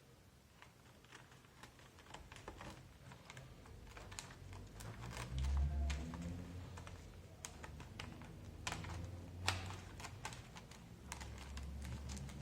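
Scissors cutting into an old computer keyboard: irregular plastic clicks, snips and key clacks that grow denser and louder after the first couple of seconds, with a low rumble twice.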